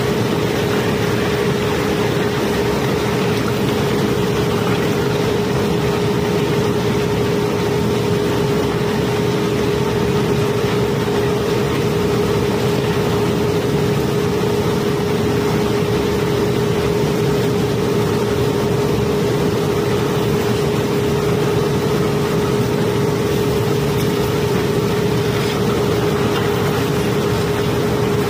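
Steady drone of the barge's unloading machinery, a constant hum that does not change, over the continuous rushing rattle of cobblestones sliding down a steel chute.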